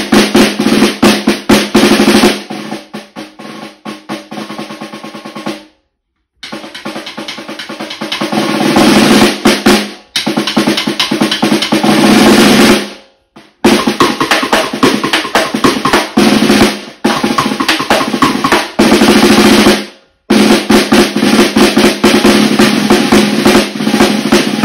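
Snare drum played with sticks in a short solo of rudiments: fast runs of strokes and rolls that swell and fade, broken by three brief stops.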